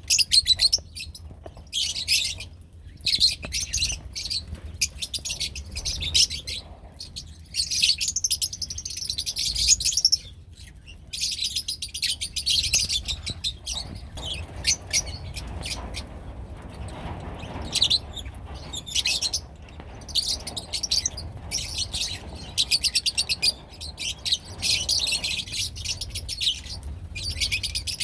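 Lovebirds chattering: rapid, high-pitched chirps in dense runs, with short pauses about ten seconds in and again a little past the middle.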